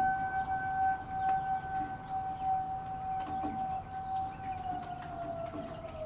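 Federal Signal 2001 electromechanical outdoor warning siren sounding a steady tone, then winding down, its pitch falling from about four and a half seconds in.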